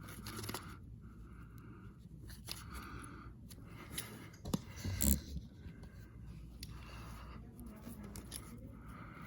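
Carpet being tucked into its edge with a hand tool: short scraping strokes about once a second, with a sharper knock about five seconds in.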